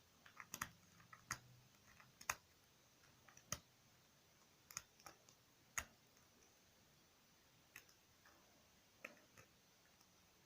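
Lock pick and tension wrench working the pins inside a Master Lock: a dozen or so sharp metallic clicks and ticks at uneven intervals, part of picking the lock open.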